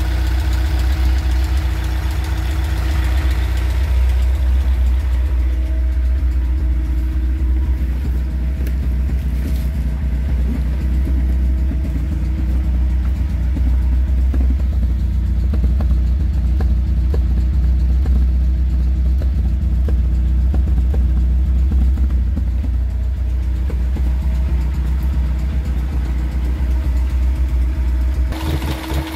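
1929 Riley 9's four-cylinder engine idling steadily. The exhaust chirp is gone now that the manifold leak has been sealed.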